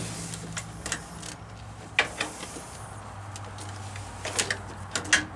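Scattered light metallic clicks and taps as a hose eyelet, bolt and washers are worked by hand onto a hydraulic control valve, over a steady low hum.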